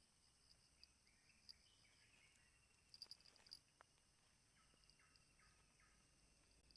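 Near silence: faint insect chirps and scattered clicks.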